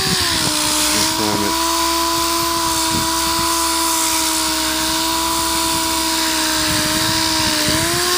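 Dual-action sander running steadily with a high whine and hiss as it sands the textured finish off a BMW motorcycle engine case. Near the end its pitch dips briefly and then recovers.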